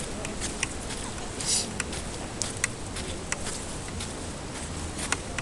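Steady outdoor background noise with scattered light clicks and a brief hiss about a second and a half in.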